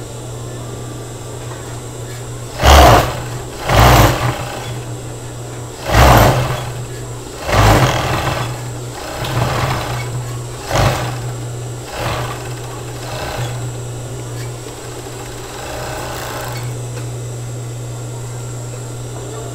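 Industrial four-thread overlock machine (serger) overcasting a fabric edge. Its motor hums steadily while it runs in eight or nine short bursts of stitching, one to two seconds apart, which fade out after about two-thirds of the way in, leaving only the hum.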